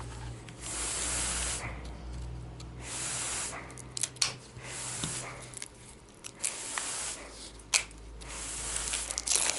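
Utility knife blade slicing and scraping at the plastic wrap on a deck of cards: several short hissing strokes, with a few sharp clicks between them.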